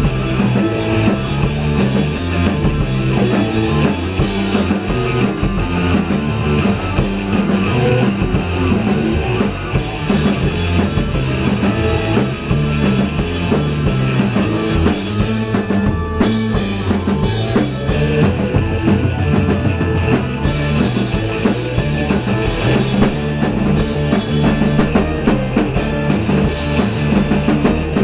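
A rock band playing live in a small rehearsal room: electric guitars over a drum kit keeping a steady beat, loud throughout.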